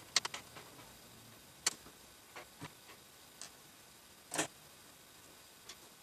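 Light, sharp clicks and ticks of a hand screwdriver and small screws against the motherboard's mounting standoffs and steel case as the board is screwed down: a quick cluster of three at the start, then single clicks about a second apart.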